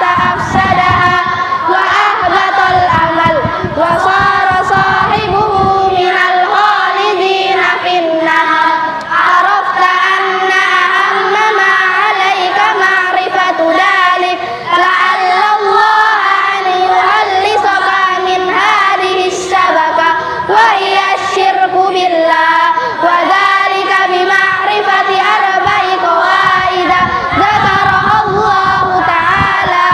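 A group of children chanting an Arabic text in unison from their books, a continuous melodic recitation.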